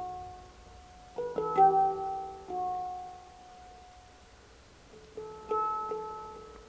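Slow, sparse instrumental music: single struck notes and small clusters of notes that ring out and fade, coming in three groups, at the start, about a second in, and about five seconds in.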